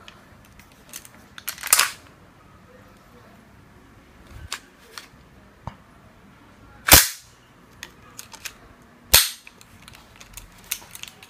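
Several sharp metallic clacks from a G&P custom 416C airsoft rifle's parts being worked by hand. There is a short cluster about two seconds in, then two loud single clacks about two seconds apart in the second half.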